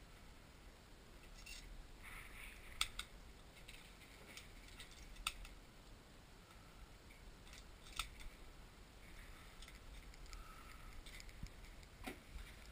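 Faint metallic clicks of a pump-action shotgun being handled: a few sharp clicks a couple of seconds apart, with fainter ticks between.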